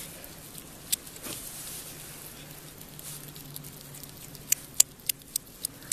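Wild hedgehog eating from the hand, chewing with small wet smacking clicks, a quick run of several near the end.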